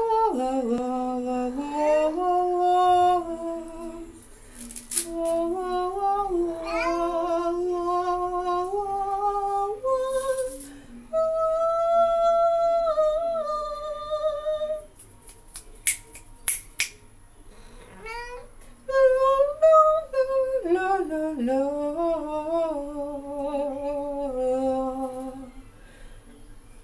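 A woman singing held notes while a cat meows along with drawn-out, gliding yowls, the two voices overlapping.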